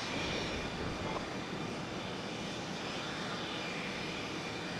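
Jet aircraft engines running: a steady rush of noise with a thin, high whine.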